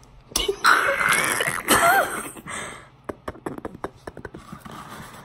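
Loud, breathy non-speech vocal noises from girls very close to the microphone for about two seconds, then a run of short sharp clicks.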